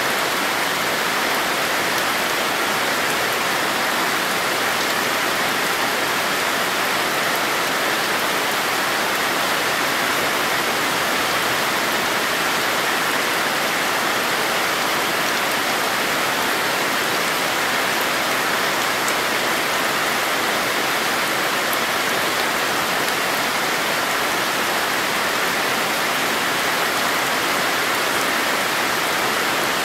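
Steady rain falling on leaves and garden plants, an even, unbroken hiss.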